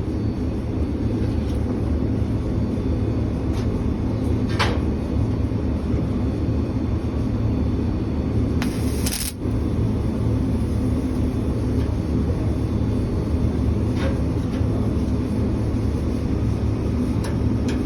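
Steady low machine drone and rumble with a haze of hiss over it. There are brief crackles about four and a half seconds in and again, louder, about nine seconds in.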